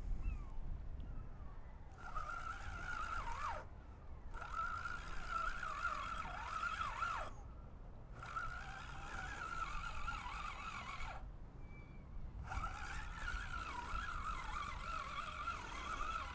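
Spinning reel being wound in against a hooked fish, with a steady, wavering whine from the braided line, starting about two seconds in and stopping briefly three times as the winding pauses. The whine comes from the braid, not from a faulty reel.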